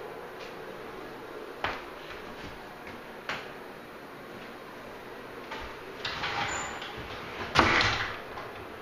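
Wooden interior door being handled: two light knocks, then rustling and a louder clunk near the end.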